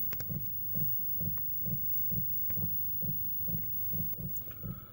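A low, even pulsing that repeats about two to three times a second, with a few faint clicks over it.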